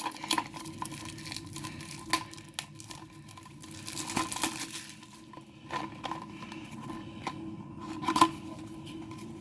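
Small cardboard toy blind box and its plastic packaging being opened by hand: crinkling and tearing, with scattered light clicks and taps.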